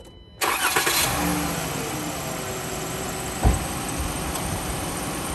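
Ram ProMaster van engine starting, flaring briefly and settling to a steady idle, heard with the hood open. A single low thump comes about three and a half seconds in.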